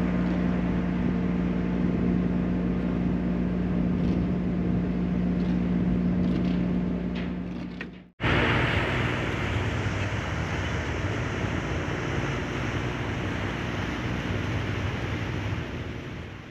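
Steady mechanical engine drone with a constant hum. About eight seconds in it cuts to a noisier engine drone with a rushing hiss, which fades out near the end.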